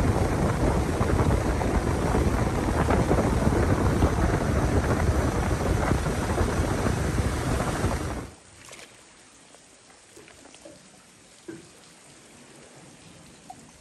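Loud, steady rush of wind buffeting the microphone and water noise from a small open boat under way. It cuts off suddenly about eight seconds in, leaving a quiet background with a few faint, brief sounds.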